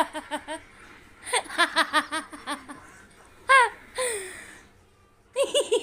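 Laughter in quick, rhythmic runs of 'ha-ha-ha' pulses: a short run at the start and a longer one about a second and a half in. Two drawn-out, falling laughs follow around three and a half to four seconds, and more laughing starts just before the end.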